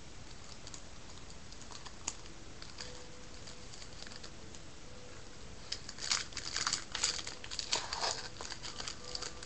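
Crinkling and tearing of a trading-card pack wrapper being opened by hand, a quick cluster of rustles starting about six seconds in and lasting a few seconds.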